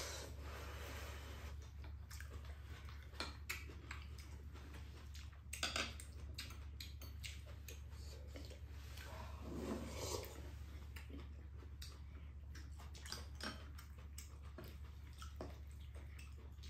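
Quiet eating sounds: wet slurps and chewing, with scattered light clicks of chopsticks and spoons against ceramic bowls.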